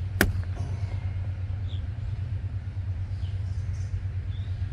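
A single sharp plastic snap about a quarter second in, as the power seat switch trim is prised off barehanded; one side of its plastic clip breaks. A steady low hum runs underneath.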